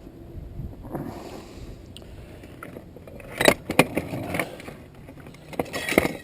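Handling noise: scraping with a few sharp knocks, a pair about halfway through and more near the end.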